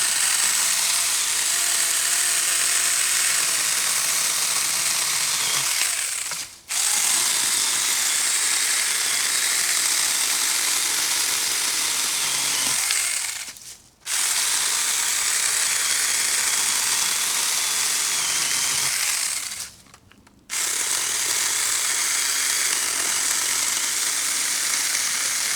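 Saker mini cordless electric chainsaw running and cutting wood, in four long runs of about six seconds each with brief pauses between.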